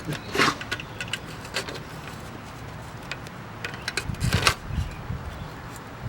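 Handling noises: scattered small clicks and rustles, with two louder rustling scrapes, about half a second in and about four seconds in.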